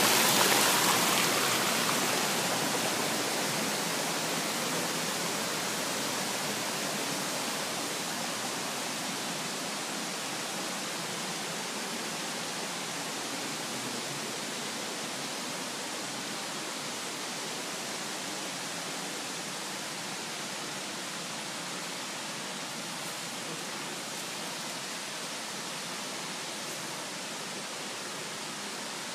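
Shallow creek water rushing over rocks, a steady rush that is loudest at first and fades over the first few seconds, then holds steady.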